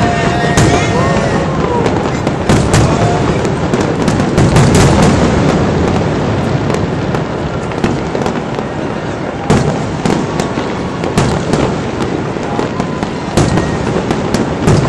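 Fireworks display going off continuously: a dense run of bangs and crackling pops, with single louder cracks standing out in the second half.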